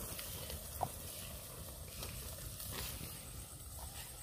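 Chicken sizzling in a clay pot over a wood fire, with a few light clicks of a wooden spoon stirring against the pot.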